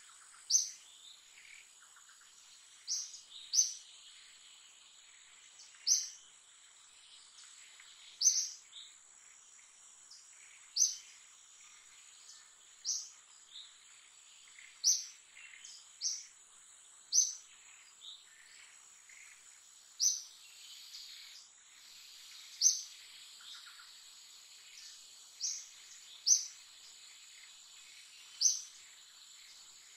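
A bird repeating a short, high chirp every second or two, over a steady high-pitched insect drone.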